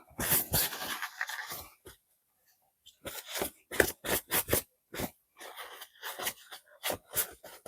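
Handling noises of a silicone mold being flexed and pulled to free a soft resin casting: a run of short, irregular rubbing and squeaking noises, pausing briefly about two seconds in before starting again.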